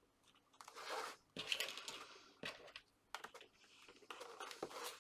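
Pieces of card being handled and pressed into place: irregular rustling and scraping of card, with a few light taps.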